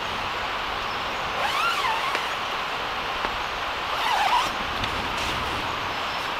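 Steady hiss of rainforest background, with two short warbling sounds, about a second and a half in and about four seconds in, and light rustling of tent fabric being handled.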